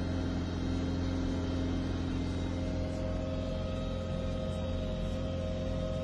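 Utility vehicle with a front-mounted snowblower running steadily as it throws snow, heard from inside the cab: an even engine drone.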